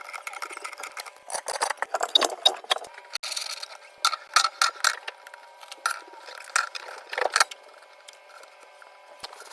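Hand tools and metal pipe fittings clinking, scraping and rattling in irregular bursts while a leaking union on a well tank is worked on. The bursts ease off near the end.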